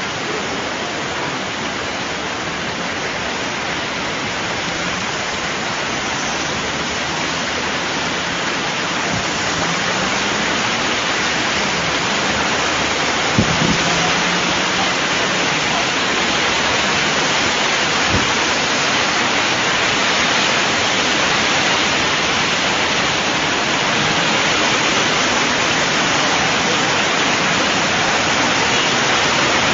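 Steady hiss of heavy rain falling on floodwater, slowly growing louder, with a single sharp knock about halfway through.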